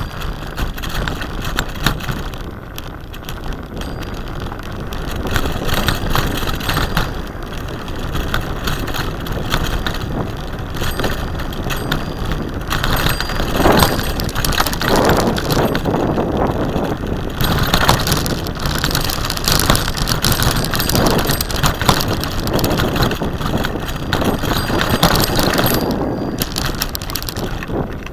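Bicycle ridden over a bumpy dirt track: continuous tyre noise and rattling of the frame and parts over ruts, mixed with wind rushing over the microphone, noisier through the second half.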